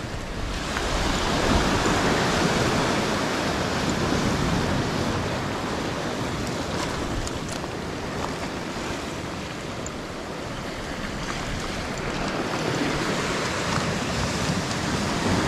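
Sea surf washing and breaking against a rocky shore: a steady rushing noise that swells and eases.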